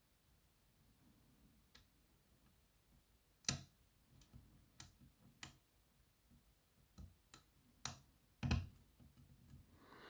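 Irregular sharp clicks of a lock pick working the pin tumblers of a BKS 88 cylinder under tension, about a dozen, with two louder clicks about three and a half and eight and a half seconds in.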